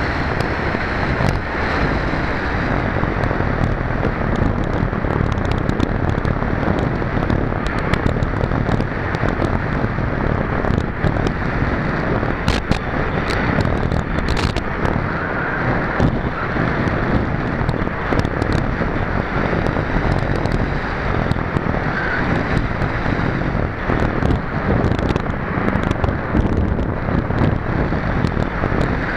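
Steady rush of wind buffeting the microphone of a nose-mounted onboard camera on a gliding radio-controlled sailplane, with a few faint clicks near the middle.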